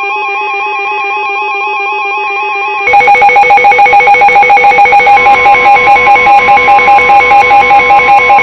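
Weather radio alarm going off for an incoming severe thunderstorm warning: a fast, stepping electronic warble. About three seconds in it becomes much louder and pulses about four times a second, and a steady single alert tone joins about five seconds in.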